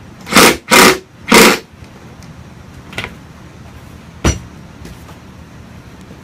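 Three short, loud bursts from a power driver running screws into chair parts in the first second and a half. A light click follows, then a sharp knock of parts a little after four seconds in.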